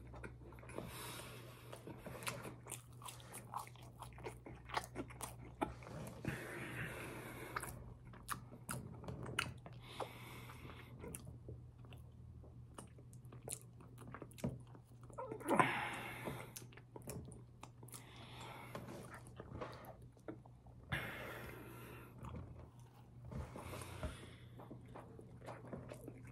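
Close-miked chewing and biting of a fast-food burger and fries: wet mouth clicks and soft crunches, with louder spells of chewing every few seconds. A steady low hum sits underneath.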